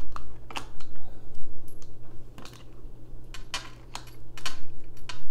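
Hands handling tarot cards on a glass tabletop: irregular sharp clicks and taps, a few close together, then a gap in the middle before more.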